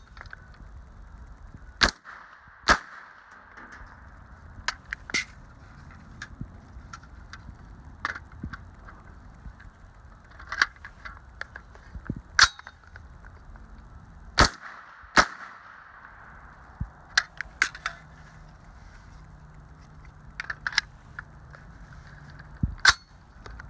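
Single gunshots from an AR9 pistol-calibre carbine built on a Glock-magazine lower, fired one at a time at irregular intervals of about one to several seconds, with fainter shots in between.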